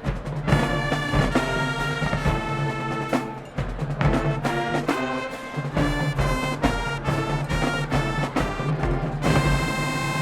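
High school marching band playing: brass chords in short accented hits over drums, then a held brass chord from about nine seconds in.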